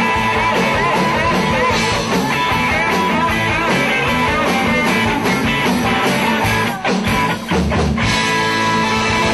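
Live rock band playing at full volume, with guitar, briefly breaking off twice about seven seconds in.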